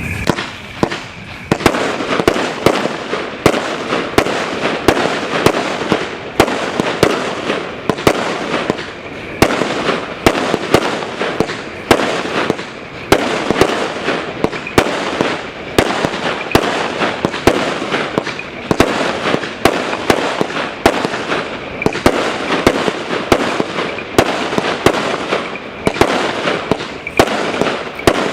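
A 100-shot consumer fireworks cake of silver palm shells with tracers, firing in rapid succession. Sharp shot reports come about twice a second over a continuous hiss and crackle.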